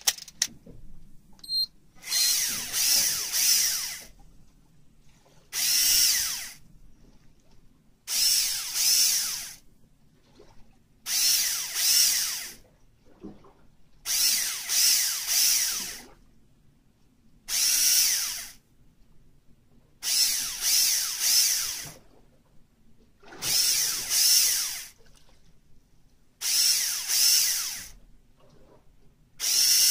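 Electric fishing reel's motor whirring in about ten short bursts, roughly every three seconds, each lasting one to two seconds: the reel is winding in line in spurts, jigging the squid lure.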